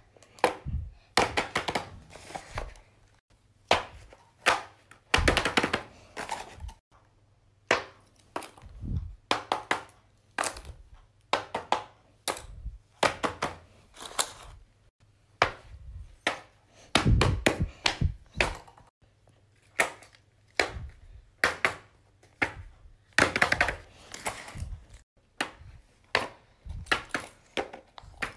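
Fidget toys being handled and set down on a paper sheet: irregular taps, clicks and thuds, some in quick clusters.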